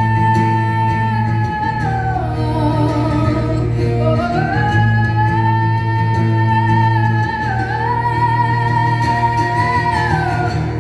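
A woman singing long held high notes live: three drawn-out notes, each gliding up at its start and sliding down at its end, over steady sustained acoustic guitar chords.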